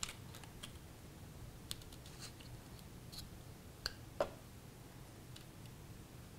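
Faint rustling and handling of cardstock as glued paper tabs are folded and pressed into place. There are two light taps about four seconds in as a plastic glue bottle is picked up off the table.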